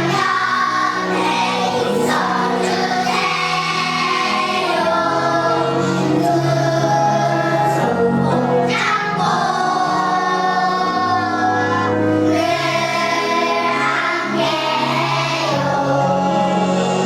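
Kindergarten children's choir singing a song together, with musical accompaniment.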